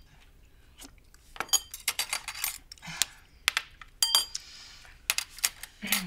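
Cutlery clinking against dishes at a table: scattered sharp clinks, a dozen or so, some ringing briefly.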